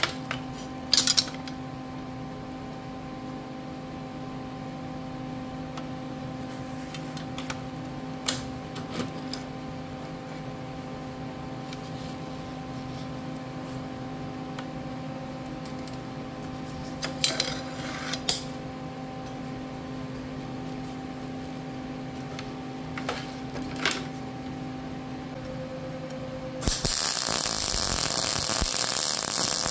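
A steady hum with a few sharp metallic clinks and clanks as steel parts and clamps are set on a steel welding table. About 27 seconds in, a wire-feed welder strikes an arc and starts a weld, a sudden, louder, steady hiss.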